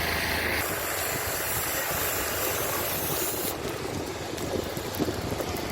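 An engine running with a steady rushing hiss over it. The hiss changes character briefly about half a second in and again past halfway.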